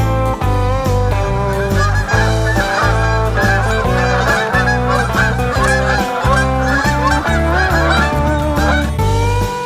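A flock of geese honking, many calls overlapping from about a second and a half in until shortly before the end, over background music with a steady bass line.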